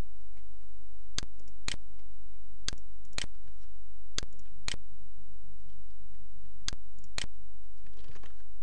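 Computer mouse button clicked, four pairs of sharp clicks with about half a second between the two in each pair, over a steady low electrical hum.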